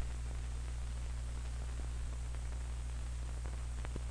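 Steady hiss and low hum of an old 16mm film soundtrack between lines of narration, with a few faint clicks and a brief click at the very start.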